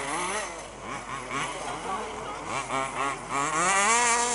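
Several 1/5-scale off-road RC cars racing, their small two-stroke petrol engines buzzing and revving, the pitch rising and falling with the throttle. Near the end one car comes louder and its engine climbs in pitch as it accelerates.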